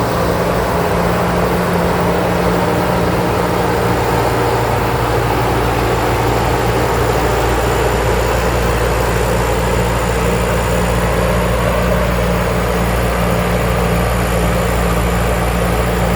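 Rice combine harvester's engine running steadily at a constant working speed while the machine harvests, with the even whirring rush of its cutting and threshing gear over the engine's low hum.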